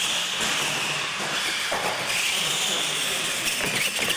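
Electric R/C monster trucks launching and racing on a concrete floor: a steady, high whine of motors and gears with tyre noise, starting suddenly at the launch.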